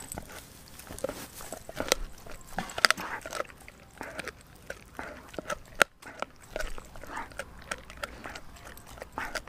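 A Doberman chewing and gnawing a raw, frozen pig's foot, with irregular crunches and clicks of teeth on bone.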